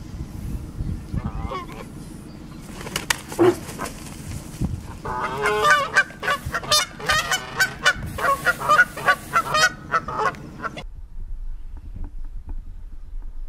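Canada geese honking: a few calls at first, then a fast run of loud, repeated honks that stops abruptly about three-quarters of the way through.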